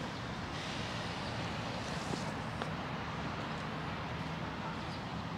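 Steady outdoor city ambience: an even wash of distant traffic noise, with a couple of faint ticks about two seconds in.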